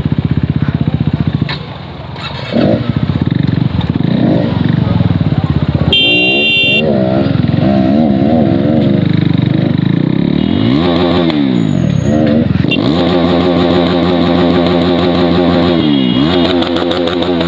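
Motorcycle engine under way, its pitch climbing as it accelerates and then dropping sharply at each of several gear changes. A vehicle horn beeps briefly about six seconds in.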